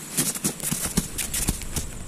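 Footsteps crunching on a stony bank: a rapid, irregular run of clicks and knocks, with a few heavier thumps.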